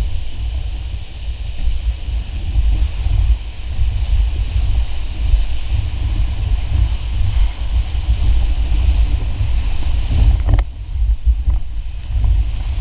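Whitewater rapid rushing around an inflatable raft, with heavy wind and water buffeting on the action camera's microphone. A single sharp knock about ten seconds in.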